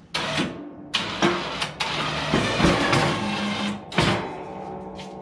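The ATV's electric winch running in short bursts, reeling in its cable to lift a ProMount snowplow up to the mount plate. It stops and starts several times, with a few knocks along the way.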